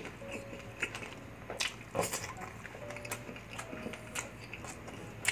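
Close-miked eating: crunching bites and chewing of crispy fried food, with sharp crackles at irregular moments. Soft background music with a few held notes plays under it.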